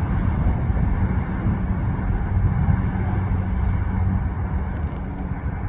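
Freight train's covered hopper cars rolling past on the rails, a steady rumble of wheels that eases slightly near the end as the tail of the train moves away.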